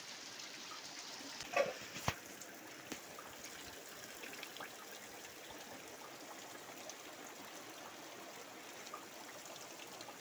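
Rain falling steadily, a faint even hiss with small scattered drips. There is a brief louder sound about one and a half seconds in, followed shortly by a sharp click.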